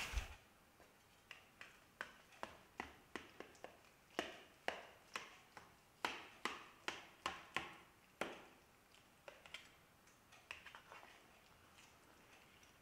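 A knife cutting through the crispy baked cheddar and mozzarella topping of a pasta bake in a stainless steel pan: a run of short, sharp crunches and taps, about two a second, thinning out after about eight seconds.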